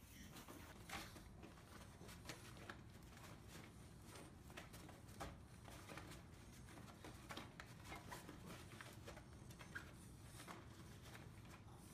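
Faint rustling with soft scattered clicks and scratches as a dog paws at and shuffles on fabric: floor pillows, then a cloth bag.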